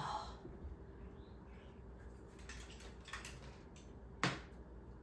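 Quiet room with a few faint ticks and one sharp click about four seconds in.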